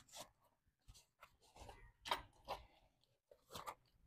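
Near silence with a few faint clicks and rustles of small parts and packaging being handled at a desk.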